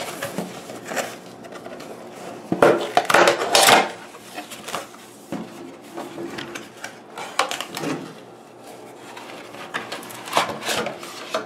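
A cardboard box being opened by hand: its flaps pulled open and the earmuffs worked out of the packaging, with scraping and rustling of cardboard. The loudest stretch is a long scrape about two and a half seconds in, followed by a few shorter scrapes and knocks.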